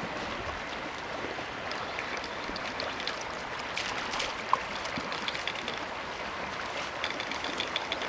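Steady rush of a flowing river, with light splashing and rustling from dogs and pups moving in the shallows at the bank, and a brief knock about four and a half seconds in.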